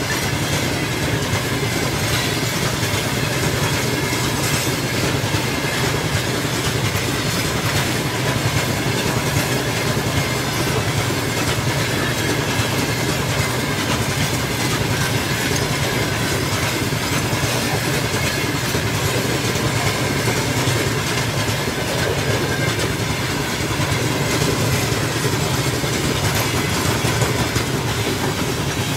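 A long freight train of open-top gondola wagons rolling past at speed, its wheels running steadily over the rails.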